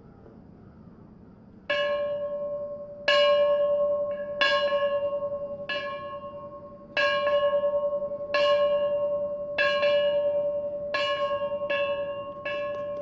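A ceremonial bell rung again and again, about ten strokes starting nearly two seconds in, each at the same pitch and ringing on as it fades. The strokes come about a second and a half apart, quickening near the end.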